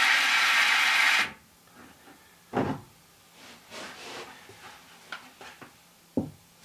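Water and air hissing as they rush through a newly fitted hose tap, shut off abruptly about a second in. Then a few light knocks and handling sounds as the fitting is checked for leaks.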